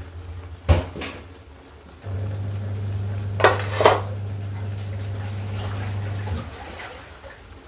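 Metal pots, woks and lids clanking as they are moved on a gas stove: one sharp clank about a second in and two ringing metal clinks around the middle. A steady low hum sounds underneath through most of the middle, starting and stopping abruptly.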